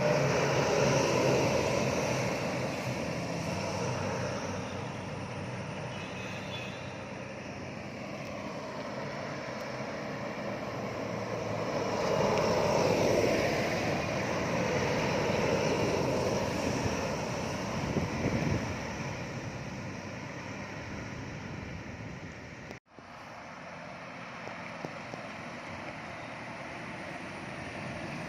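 Heavy trucks and buses going by on the road: a steady engine and tyre drone that swells as vehicles pass, loudest about a second in and again around twelve to fourteen seconds in. The sound cuts out for an instant about 23 seconds in.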